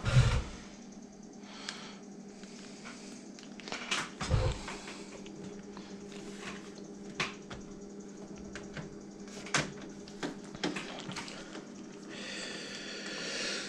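Hard drive being screwed into its metal mounting caddy by hand: scattered small clicks and ticks of screws and screwdriver, with two heavier knocks, one at the start and one about four seconds in, and a scraping stretch near the end, over a steady low hum.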